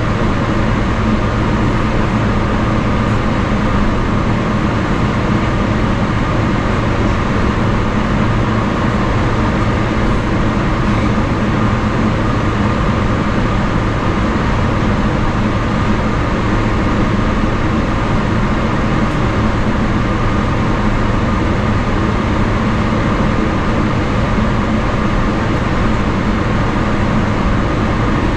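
Steady cabin noise inside a Boeing 777-300ER taxiing with its GE90-115B engines at idle: an even rumble with a low hum and a higher held tone, unchanging throughout.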